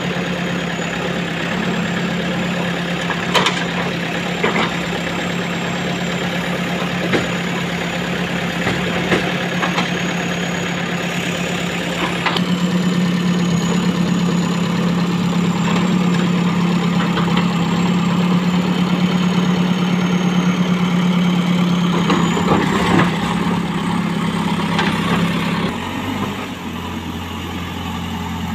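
JCB backhoe loader's diesel engine running steadily while the machine works soil, with scattered short knocks and clanks. The engine gets louder a little under halfway through and drops to a lower note near the end.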